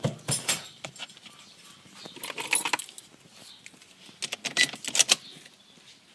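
Small metal objects jangling and clicking as they are handled, in three short bursts with pauses between.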